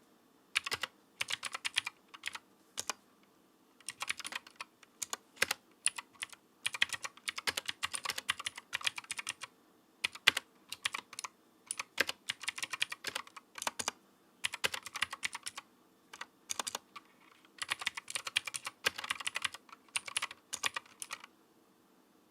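Typing on a Paradox Gaming Ghost GH68 mechanical keyboard with clicky Gateron Green switches and PBT keycaps: runs of rapid keystrokes broken by short pauses. The typing stops about a second before the end.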